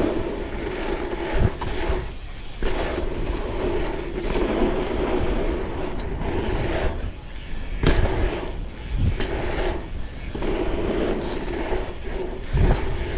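Mountain bike tyres rolling on an asphalt pump track, the rolling noise swelling and fading through the rollers and berms, with three sharp knocks as the bike hits bumps.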